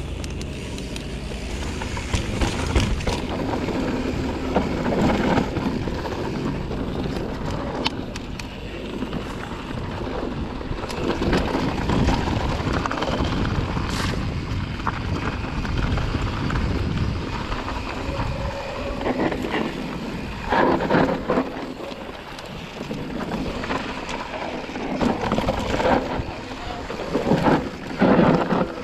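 Wind rushing over the camera microphone as a mountain bike rolls down a rocky dirt trail, with tyre noise on dirt and stones and sharp knocks and rattles from the bike. It gets rougher and choppier in the second half.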